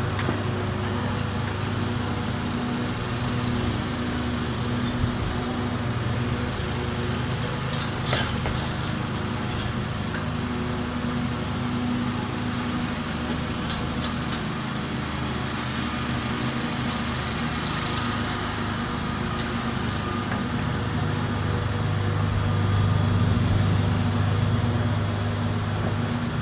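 A motor running steadily, a low even hum with a few faint clicks; it grows a little louder about three-quarters of the way through.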